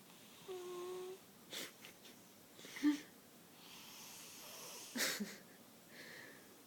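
A sleeping cat snoring. It starts with a brief whistling wheeze, then comes a string of short, irregular noisy breaths and a longer hissy breath.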